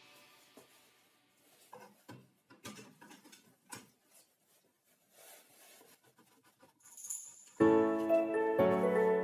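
A quiet stretch with a few faint clicks and light knocks of workshop handling, then piano background music comes in sharply about three-quarters of the way through.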